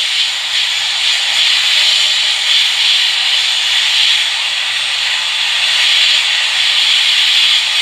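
Hot air rework station blowing a steady hiss of hot air, turned up high to heat and loosen the metal shield over a phone's logic board.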